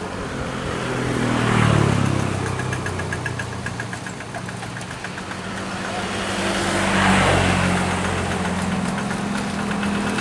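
Kubota RD85DI single-cylinder diesel engine of a Quick G1000 hand tractor running steadily, its sound swelling louder and easing back twice, about 2 s and about 7 s in.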